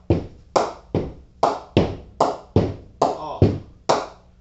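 English willow SG HP Icon cricket bat being tested for ping: a ball bounced again and again on the flat face of the bat, about ten sharp knocks at two to three a second, each with a short ring.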